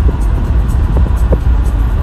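Heavy low rumble of wind and road noise from a moving car, with music playing underneath.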